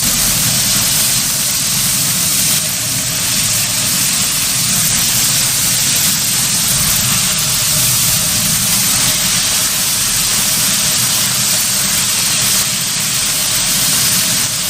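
Food frying on a hot griddle: a steady, loud sizzle with a low hum underneath.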